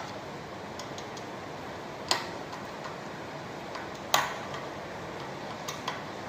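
Scattered sharp clicks and taps of metal parts and hand tools during ceiling fan assembly, with two louder clicks about two seconds apart and fainter ticks between them, over a steady hiss.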